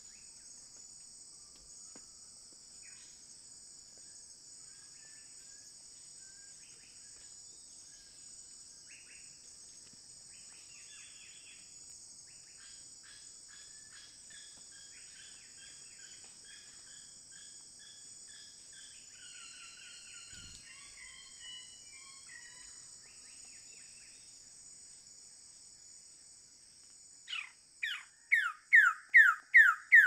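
A steady high drone of forest insects, with faint scattered bird calls. Near the end a male Wilson's bird-of-paradise gives a loud series of downslurred calls, about two a second.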